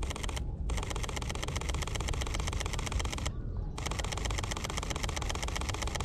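Sony A7III mirrorless camera shutter firing in continuous bursts of rapid, evenly spaced clicks: a short burst, then two long ones separated by a brief pause a little past three seconds. A low steady rumble runs underneath.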